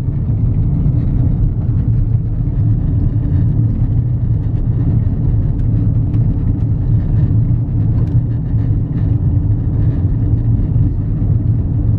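Steady low rumble of engine and tyre noise inside a car's cabin as it drives along a highway.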